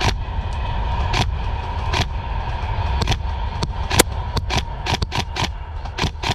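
Airsoft guns firing: sharp single cracks at irregular intervals, coming in a quicker run of shots about two-thirds of the way through, over a steady low rumble.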